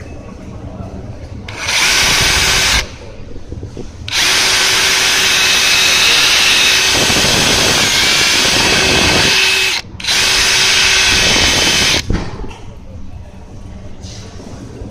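Stanley FatMax brushless cordless drill-driver run free with no load in three bursts, each starting and cutting off abruptly. The first is short, about two seconds in; the second lasts about five and a half seconds; the third, about two seconds long, follows almost at once.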